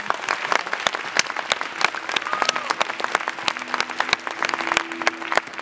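Audience applauding, a dense patter of clapping with loud individual claps close by.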